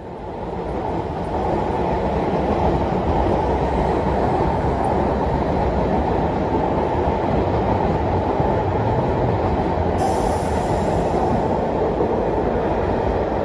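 MTR Tuen Ma Line electric multiple-unit train running slowly through the track crossover at the station throat, a steady rumble of wheels and motors that fades in over the first two seconds. A faint high hiss joins about ten seconds in.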